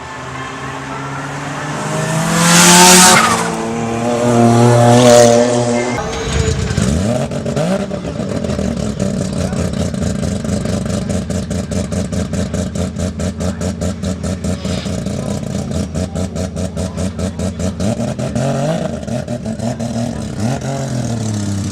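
Modified sports car engines. In the first few seconds one engine is revved hard twice, very loud. After a sudden change about six seconds in, an engine idles with a lumpy, evenly pulsing beat, and is given a few quick rev blips near the end.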